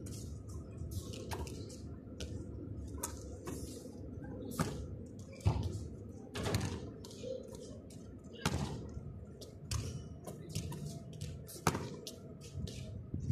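A basketball bouncing on a concrete court and striking the hoop: irregular sharp thuds and knocks, the loudest about five and a half and eight and a half seconds in, over steady low background noise.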